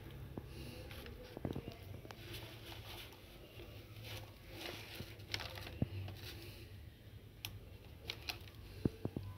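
Plastic toy vehicles being handled and moved about, giving scattered light clicks and knocks over a faint steady low hum.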